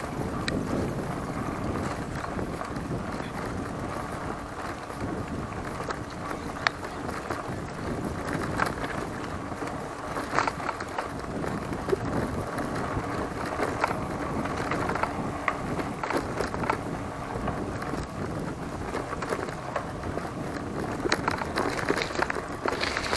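Giant Talon 3 hardtail mountain bike being ridden on a trail: a steady rush of tyre and wind noise on the microphone, with scattered clicks and rattles from the bike.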